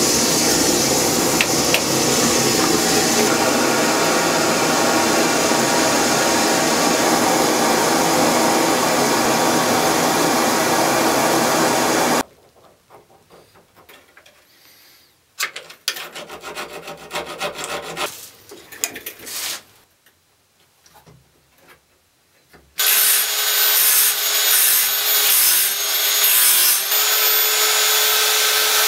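About twelve seconds of a steady loud rushing noise, then quieter scattered scraping of a small file on the steel tongue of a jew's harp. Near the end comes about six seconds of loud, rhythmic rubbing of the harp's steel frame with an abrasive hand tool.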